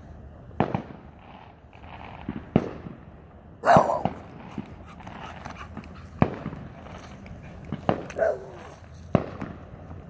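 Fireworks going off in the neighbourhood: single sharp bangs every second or two, the loudest a little under four seconds in. A dog barks briefly about eight seconds in.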